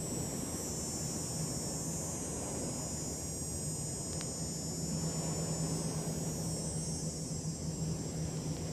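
Steady outdoor background noise: a low rumbling hiss with a steady low hum in it and a high hiss above, and one faint tick about four seconds in.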